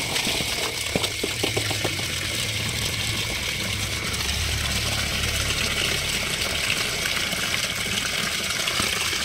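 Tap water pouring steadily into a plastic basin full of small fish, splashing on the water's surface. About a second in, a few short splashes come as the fish are tipped in from a basket.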